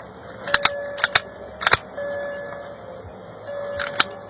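Several sharp clicks and clacks, mostly in quick pairs in the first two seconds and one more near the end, typical of hard objects being handled. Under them a steady electronic tone sounds for about a second at a time and repeats.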